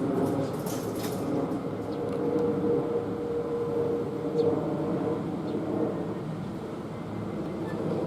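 Kintetsu electric train running past on the Osaka Line: a steady rumble of steel wheels on rail, with a few clicks in the first second and a steady motor whine for a couple of seconds in the middle.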